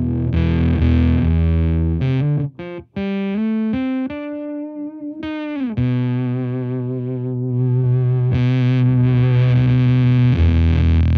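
Electric guitar played through a Devi Ever Big Distortion Sound Machine fuzz pedal into a Laney VC30 valve amp. It plays a heavy low chord, then a run of short picked notes, then a note bent down and held with vibrato, and the low chord returns near the end. The pedal's volume knob is at about half, where it works like an input gain and gives somewhat less fuzz.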